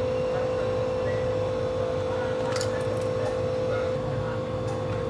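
A steady mechanical hum holding one pitch over a low rumble, with a few light clicks about halfway through and again near the end.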